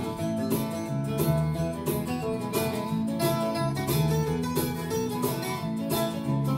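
A live band playing an instrumental passage between sung lines: strummed acoustic guitars and electric guitar keeping a steady rhythm, with no vocals.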